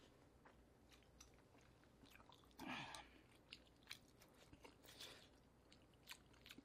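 Faint close-up chewing of a spoonful of beef-brisket stew, with small wet mouth clicks scattered through and one louder mouth sound about three seconds in.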